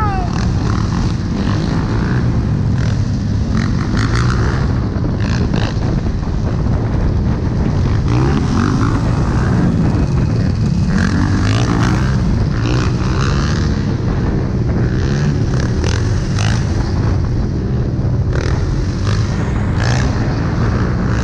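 Several dirt bike engines running and revving up and down as the bikes ride along in a pack, heard close from a moving bike.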